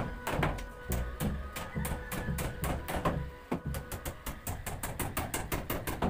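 Background music with a steady beat, with a few sharp knocks of a hammer on wooden framing, near the start and about three seconds in.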